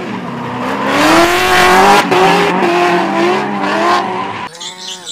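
Drift car engines revving hard, the pitch rising and falling, with tyres squealing as the cars slide sideways. It cuts off about four and a half seconds in.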